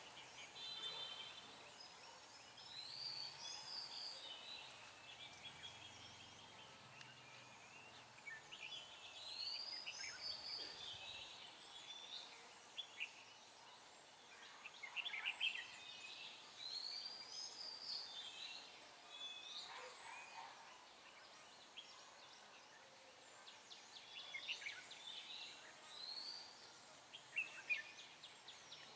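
Red-whiskered bulbuls singing, faint: short arched whistled phrases every few seconds, with bursts of quick chattering notes between them.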